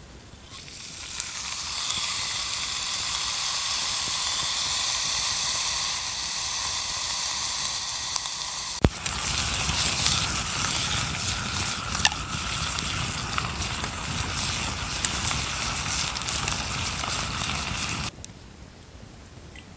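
Steak sizzling hard in a cast-iron skillet set in a campfire. About halfway through the sound changes abruptly, with sharp crackling pops and a lower rush of flame joining the sizzle, and it cuts off suddenly near the end.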